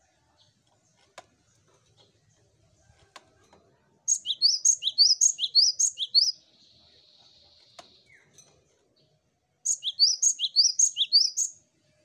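Cinereous tit singing: two bouts of quickly repeated high two-note phrases, about four phrases a second, with a soft hiss between the bouts.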